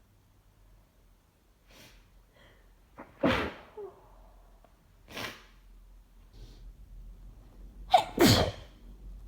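A person sneezing with a head cold: a loud sneeze about three seconds in, another about two seconds later, and the loudest near the end, a sharp catch followed at once by the full sneeze, with faint breaths between.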